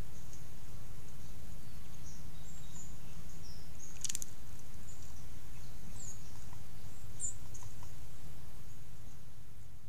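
Outdoor pond ambience: a steady low rumble with a few thin, high chirps of small birds calling in the background, and one short sharp click about four seconds in. The sound fades out near the end.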